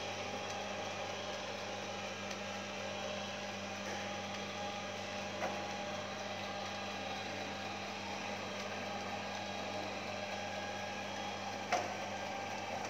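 Robot vacuum cleaner running on a tile floor: a steady motor and fan hum. A small knock comes about five seconds in and a sharper, louder knock near the end, as the robot bumps into the wall.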